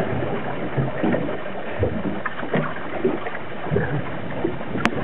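A fishing boat on the water: irregular knocks and slaps of water against the hull over a steady rushing noise, with one sharp click near the end.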